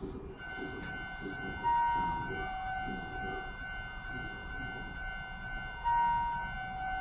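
Held electronic tones with a higher note sounding twice, and a muffled voice in the first few seconds, over the low hum of a stopped electric train: a station departure signal just before the doors close.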